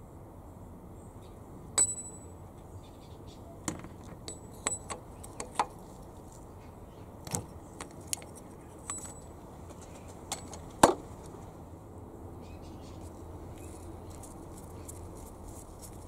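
Irregular metallic clinks and taps of a 24 mm deep socket and ratchet on the engine's oil pressure switch as the switch is loosened. The sharpest click comes about eleven seconds in.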